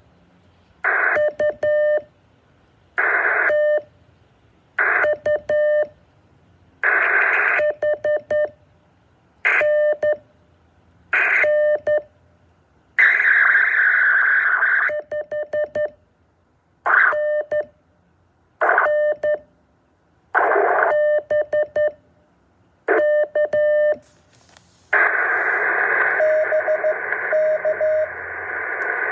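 Morse code over a radio receiver: a buzzy tone keyed in quick runs of short beeps, alternating every couple of seconds with short bursts of static. Near the end the static turns steady, with beeps still sounding through it.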